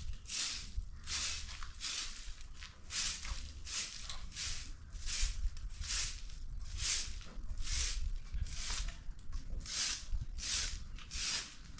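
Broom sweeping fallen leaves and debris across paving stones: short, regular swishes, about two strokes a second.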